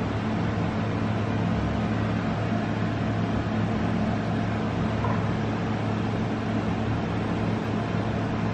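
Steady machine hum: a low drone under an even rushing noise, unchanging throughout.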